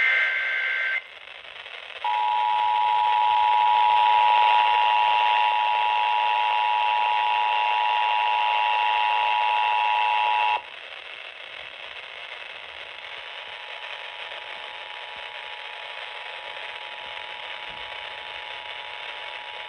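Emergency Alert System tones over a weather-radio broadcast. A brief warbling SAME data burst ends about a second in, then the two-tone EAS attention signal sounds steadily for about eight seconds. It then drops abruptly to a faint tone under radio hiss.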